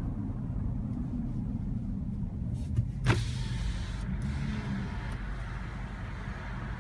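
Low steady rumble of a car idling at a traffic light, heard from inside the cabin, with a sharp click about three seconds in.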